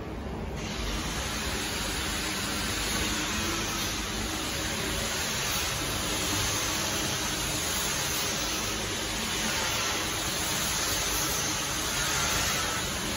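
Steady rushing-air hiss with a faint low hum from a running mug-sublimation tunnel furnace's fan motor; the hiss comes in abruptly about half a second in.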